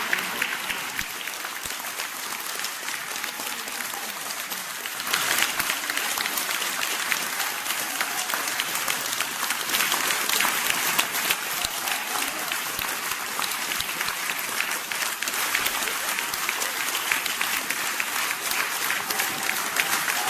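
Audience applauding, a dense patter of many hands clapping that swells louder about five seconds in and then keeps on.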